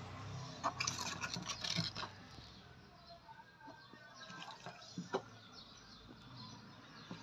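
Hands handling softened cabbage leaves on a foil-lined tray: faint rustling and crackling. The crackling is busiest between about one and two seconds in, with a sharper click about five seconds in.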